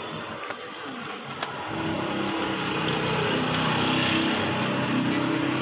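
A motor vehicle engine running close by on the street, louder and with a steady low hum from about two seconds in.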